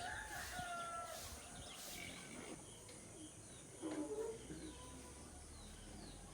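Birds chirping faintly, with short gliding calls early on and a brief louder call, like a hen's cluck, about four seconds in.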